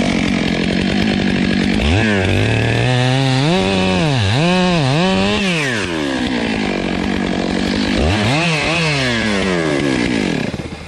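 Chainsaw cutting the face notch into a tree trunk. The engine revs up and down, its pitch dipping repeatedly under load in the middle of the cut, then drops back near the end.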